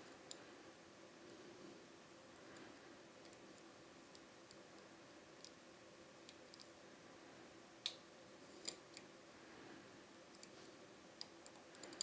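Faint, irregular metallic clicks of a lock pick working the pin stacks of a Dom IX-6 KG cylinder under a tension wrench, with two sharper clicks about two-thirds of the way through.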